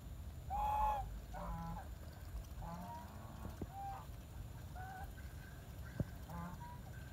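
Domestic geese honking: one loud call about a second in, then several shorter, quieter honks over the following few seconds. A single sharp click about six seconds in.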